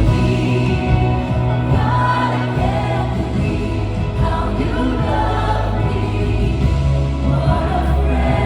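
Music with group singing, a choir-like gospel or worship song over a steady bass.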